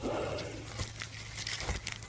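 Buffalo chewing the cud: a few sharp, irregularly spaced clicks of its jaws, with a short soft rushing sound in the first half-second.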